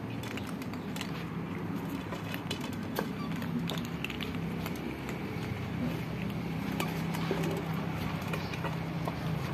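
A group of cats crunching dry kibble from a shared dish: many small, irregular crisp clicks over a steady low hum.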